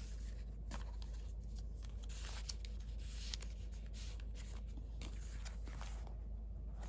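Paper rustling as a stack of memo papers and cards is handled and slid into a kraft-paper file pocket, in irregular brushing strokes that are busiest around the middle, over a steady low hum.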